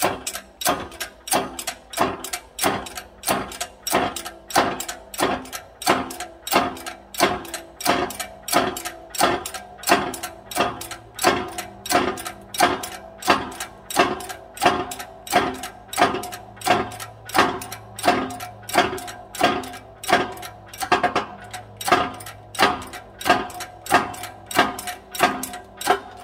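Hydraulic shop press being pumped with a rhythmic metallic clacking, about two strokes a second, each stroke ringing briefly over a low hum. The press is forcing a new pinion bearing onto the pinion shaft over its shim, and the strokes stop just before the end as the bearing seats.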